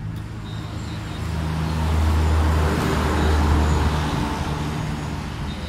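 A motor vehicle passing on a nearby road: its engine drone and tyre noise swell to their loudest about two to four seconds in, then fade away.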